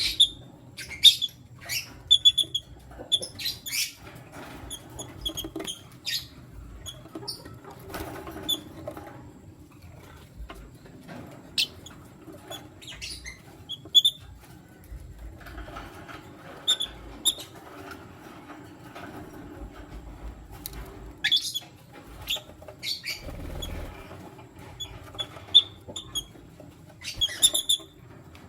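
Lutino lovebirds giving short, sharp, high-pitched chirps in irregular bursts, some in quick runs, with fluttering and scuffling between calls.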